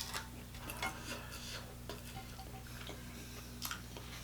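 Faint, scattered clicks and light taps of tableware being handled, over a low steady hum.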